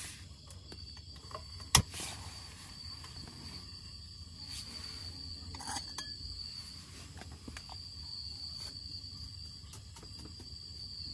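Crickets chirring in one steady, high continuous note, with a single sharp metallic click about two seconds in and a few faint knocks of cookware on the camp stove.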